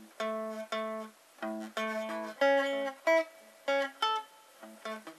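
Electric guitar playing single picked notes of an A major arpeggio, one note at a time, skipping over a string with each pick stroke, in a halting exercise pace with short gaps between groups of notes.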